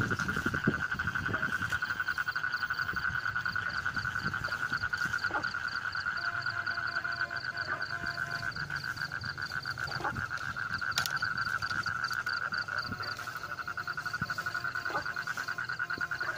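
Night chorus of calling frogs: a steady, fast pulsing trill, with a higher rapid pulsed call that starts and stops twice, and a few faint clicks.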